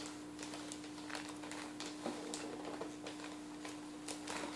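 Shiny silver wrapping paper crinkling and rustling in a child's hands as she works it loose from a gift box, in scattered small crackles.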